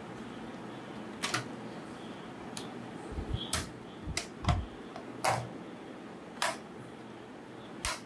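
Plastic laptop case being handled, giving about eight sharp, irregular clicks and light knocks over a steady faint hiss.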